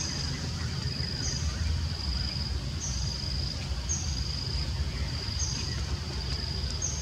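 A high-pitched animal call repeating about every second and a half, each a short held note that opens with a brief higher note, over a steady low rumble.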